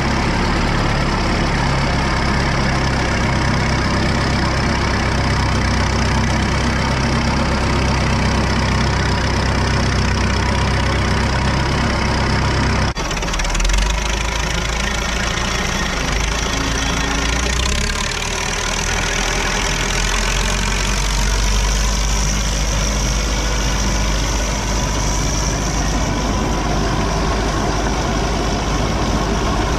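Case 830 tractor engine running steadily as it pulls a loaded manure spreader. About 13 seconds in the sound changes abruptly, and the engine runs on with the spreader working, flinging out moldy haylage.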